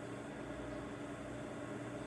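Steady hiss with a faint even hum: room tone.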